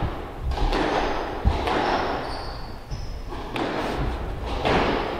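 Spectators' noise in the echoing squash court, coming in short bursts of about a second each, with one sharp thud about a second and a half in.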